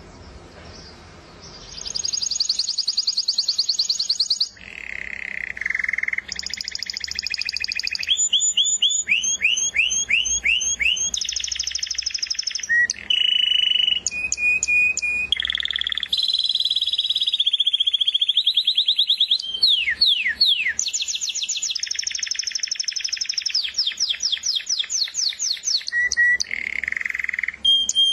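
Canary singing a long, unbroken song of rapid trills and rolls. Each run of repeated notes lasts a second or two before it switches to the next. The song starts about two seconds in.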